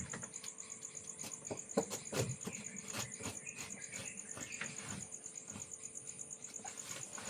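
Insects trilling steadily in a high, fast pulsing chorus, with scattered knocks and light clatter, the loudest about two seconds in.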